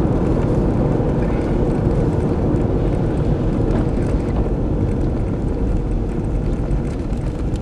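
Steady road noise from a moving car, heard inside the cabin: a continuous low rumble of tyres and engine, with a few faint ticks about four seconds in.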